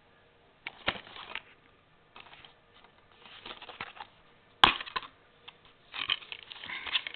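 Plastic DVD case being handled and turned over: irregular rubbing and clattering, with one sharp click a little past halfway, the loudest sound.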